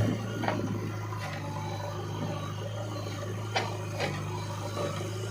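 Diesel engine of heavy farm machinery idling with a steady low hum, just after it has throttled back, with a few sharp metallic knocks.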